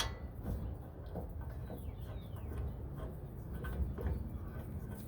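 Birds chirping in short descending calls about two seconds in, over a steady low background rumble, with a light metallic click at the start as a caliper bracket bolt is being lined up.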